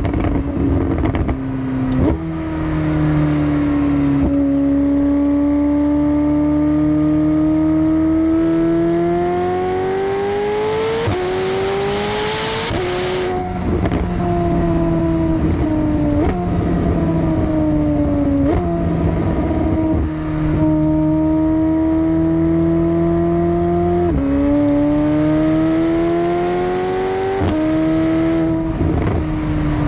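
McLaren 750S twin-turbocharged 4.0-litre V8 running under way, loud throughout. Its pitch swells and falls, jumping suddenly several times as the gearbox changes gear.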